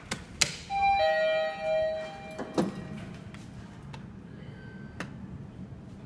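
Mitsubishi elevator arrival chime ringing after a couple of clicks: a higher tone with a lower, stronger tone that swells twice, lasting about a second and a half, as a car answers the hall call. A knock follows about two and a half seconds in.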